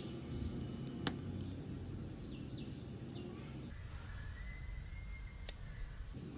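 Quiet outdoor background noise with a few short high bird chirps between about two and three and a half seconds in. A sharp click sounds about a second in and another about five and a half seconds in.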